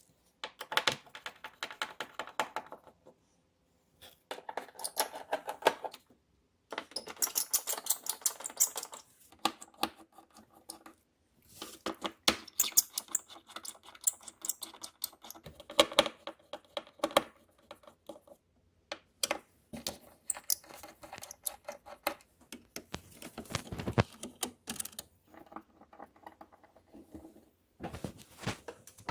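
Yamaha Clavinova CLP-230 digital piano keys being played in quick runs, the key action clacking and rattling in bursts with short pauses between them: the loud key rattle of worn stopper felts.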